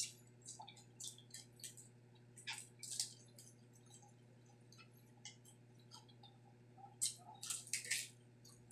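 Close-up chewing of crispy deep-fried pork intestines: irregular wet smacks and crunchy clicks, busiest about two and a half seconds in and again near the end, over a faint steady hum.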